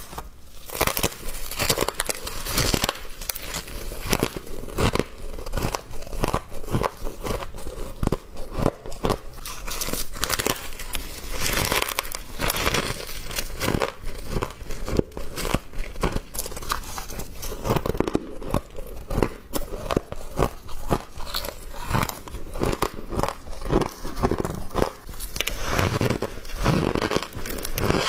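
A person biting into and chewing humidifier frost: a continuous, irregular run of crisp crunches.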